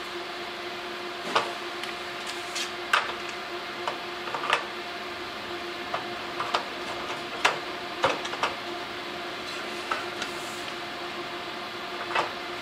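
Short clicks and knocks of T8 LED tubes being fitted into a fluorescent fixture: the bi-pin ends sliding into the plastic end sockets and the tubes twisted into place against the metal housing. A steady low hum runs underneath.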